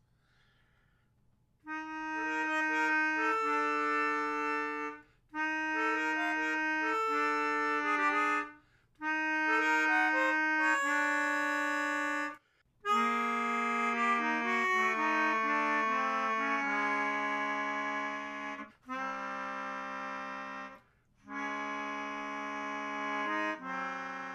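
Melodica playing a slow solo in held notes and chords of queasy tonality, in phrases broken by short pauses. The first three phrases sit higher; the later, longer phrases move lower.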